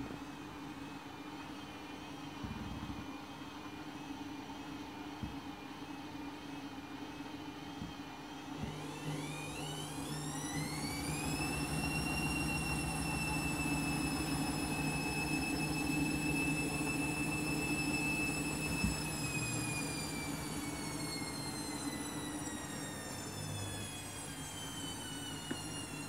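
Front-loading washing machine spinning a half load. About nine seconds in, the drum motor's whine rises steeply as the spin speeds up, holds steady at top speed, and then slowly falls away in the last several seconds.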